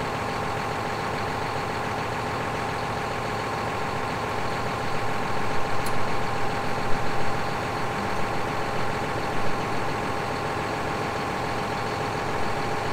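John Deere 6155R tractor's six-cylinder diesel engine idling steadily, with a few light knocks in the middle as the front top link is fitted.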